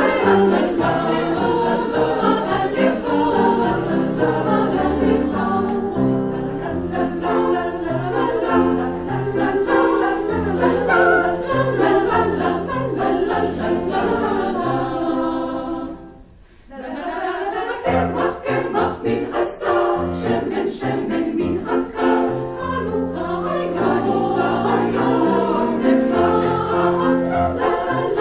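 Women's choir singing a medley of Hebrew holiday songs in a choral arrangement. The singing breaks off briefly a little past halfway, then resumes.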